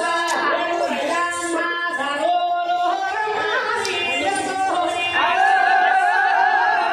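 Singing with musical accompaniment. About five seconds in the voice holds one long, wavering note, slightly louder than the rest.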